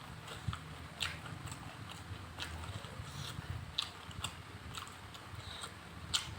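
A person chewing food close to the microphone, with irregular wet mouth clicks and smacks, several a second, over a steady low hum.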